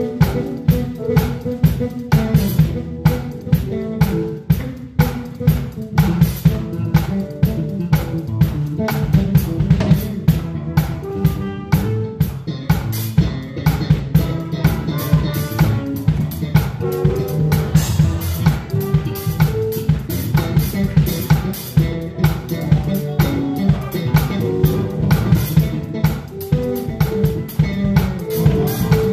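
Live band playing, with the drum kit loudest in a steady groove of kick, snare and cymbal strokes, over sustained bass and keyboard notes.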